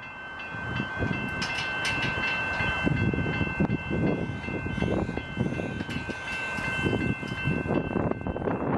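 Railway level crossing warning bells ringing continuously in a steady, many-toned clang, over a low rumbling noise that swells and fades, while the crossing is active and the boom barrier lowers.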